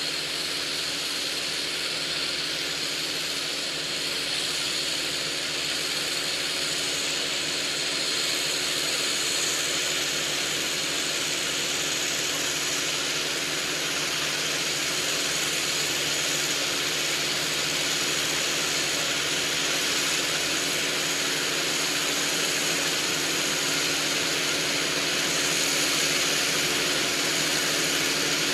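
Farm tractor's diesel engine running steadily as it works a field, with a steady high whine over it, slowly growing louder as the tractor approaches.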